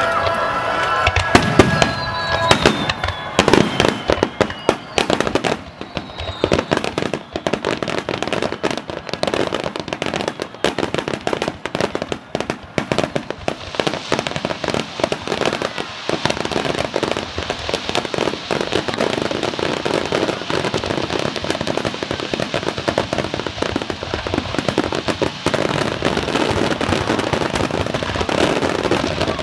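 Aerial fireworks bursting in quick succession, a dense run of pops and crackles that thickens into a near-continuous crackle after the first few seconds. A couple of falling whistles sound in the opening seconds.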